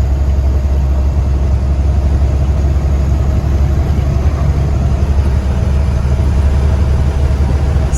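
Steady low drone of a truck's engine and road noise heard inside the cab while driving along at a constant speed.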